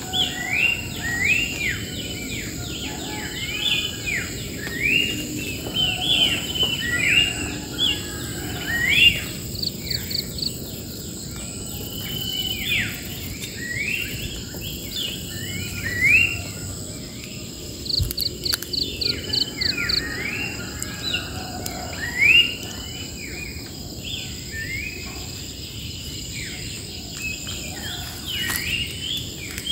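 Wild birds singing: many short rising whistled notes, over a steady high insect drone. A short fast trill comes twice, about ten seconds in and again near the middle.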